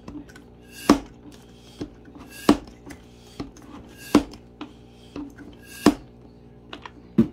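Plastic hand pump of a Stuff-A-Loons balloon-stuffing toy being worked to pump up a balloon: a sharp plastic clack at each stroke, about every second and a half, with lighter knocks between.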